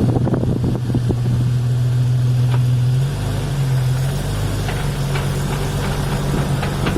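A vehicle running along with a steady engine hum and a repeated clunk from the drivetrain, a little under four clunks per wheel rotation. The owner places the fault between the transmission output and the differential inputs; new U-joints have not cured it.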